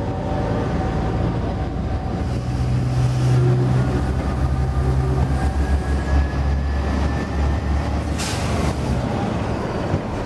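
SNCF Vigirail track-inspection vehicle passing close by at low speed, with a steady low rumble from its engine and wheels on the rails. A short hiss comes about eight seconds in.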